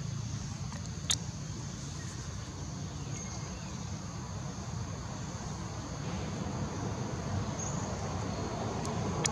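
Outdoor ambience: a steady high insect drone over a low rumble, with one sharp click about a second in. A broader noise begins to swell near the end.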